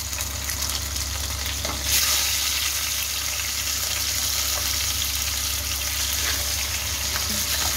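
Pabda fish (butter catfish) frying in hot oil in a pan: a steady, high sizzle that grows louder about two seconds in as more fish are laid into the oil.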